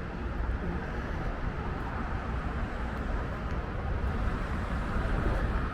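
Steady city street noise: road traffic passing, with a continuous low rumble.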